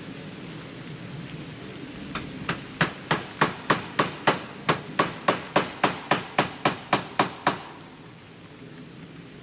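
Hammer driving nails while installing aluminum fascia trim: a quick, even run of about nineteen blows, about three a second. It starts about two seconds in and stops a little before the end.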